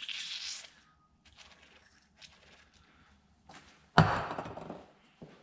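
WD-40 aerosol can spraying in a short hiss, penetrating oil onto a seized brake caliper slide pin. Faint handling noises follow, then one loud thunk about four seconds in.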